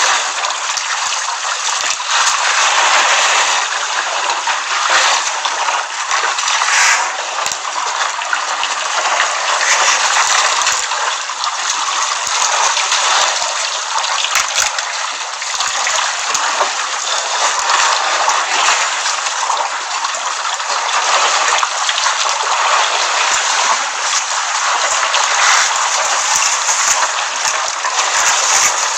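Steady, continuous rush of water at a waterhole, an even hiss with no pauses.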